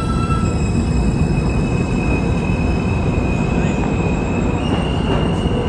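New York City subway train running on the rails, heard from on board: a heavy steady rumble of wheels on track with high steady squealing tones over it. A little past halfway the main squeal steps up in pitch.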